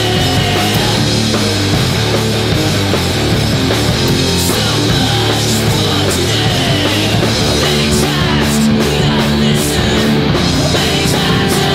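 Loud rock song with distorted electric guitars, bass and a drum kit, cymbal crashes coming thicker in the second half.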